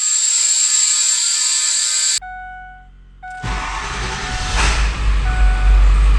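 A high hiss that cuts off suddenly about two seconds in, then a few faint ringing tones. From about three and a half seconds in comes a loud low rumble with wind-like noise, as of a running vehicle.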